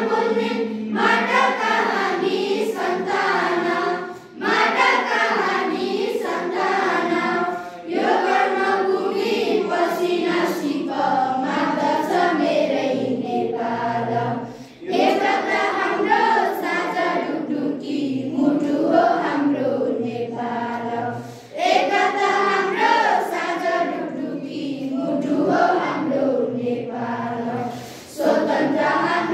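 A class of schoolchildren singing a song together in chorus, in phrases with short breaks between them.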